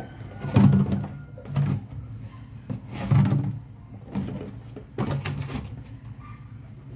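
Kitchen items being handled and set down on a counter: about five dull knocks, roughly a second apart, with rustling between them.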